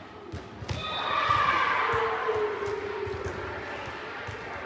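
Volleyballs bouncing and slapping on a hardwood gym floor, with the knocks echoing in the hall. About a second in, a loud drawn-out call or shout rings out and slowly falls in pitch over a couple of seconds.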